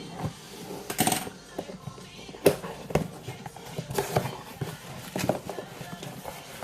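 Irregular crinkling, rustling and clicking of packaging as an album is unwrapped by hand, over quiet background music.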